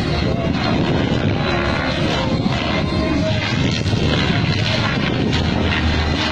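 Radio-controlled helicopter flying 3D aerobatics: a steady, loud rotor and motor noise that keeps up without a break.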